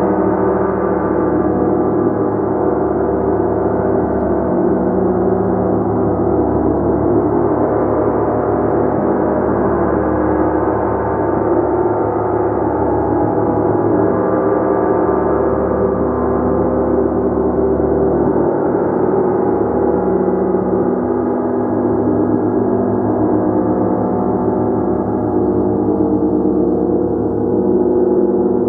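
A gong being played continuously, its many overlapping tones sustaining and swelling in a dense, unbroken wash with no pauses.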